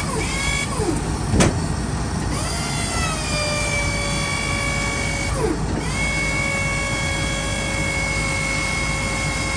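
Electric hydraulic pump motor of a Western snow plow running over the rumble of the idling truck. It whines, rising in pitch and then holding steady, twice, with a sharp click about a second in.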